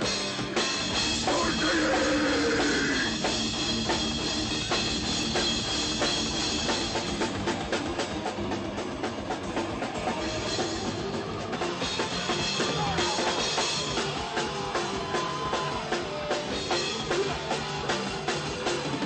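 Heavy metal music with a loud, pounding drum kit.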